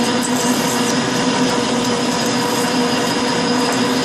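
Metal lathe running slowly while a hand-fed parting tool cuts deep into a steel bar with coolant flowing: a steady cutting noise over the machine's constant hum.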